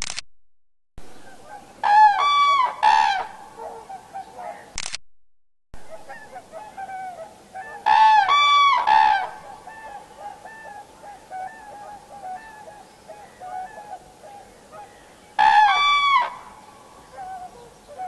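Common cranes trumpeting: three loud bouts of calls, each a few notes, about two seconds in, about eight seconds in and near the end, over a faint scatter of more distant crane calls.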